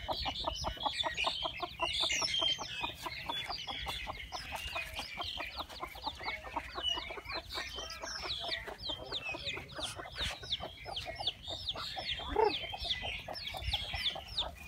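Chickens clucking in fast runs of short low notes, with chicks peeping high and thin over them throughout. A louder single call stands out about twelve seconds in.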